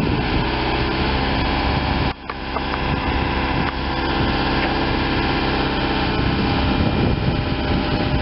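Diesel engine of a mobile crane running steadily under light load while the crane holds a suspended gun barrel, the sound dropping briefly about two seconds in.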